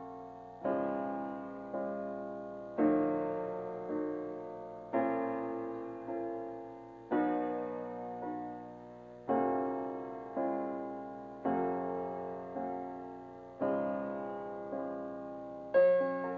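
Piano playing slow, held chords. A new chord is struck about every two seconds and fades before the next, and a louder, higher chord comes near the end.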